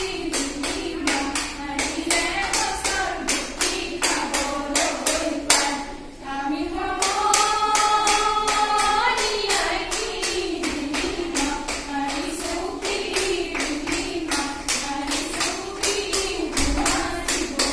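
Female voices singing a Bihu song in unison over a sharp clapping beat of about four strikes a second, with one long held note in the middle.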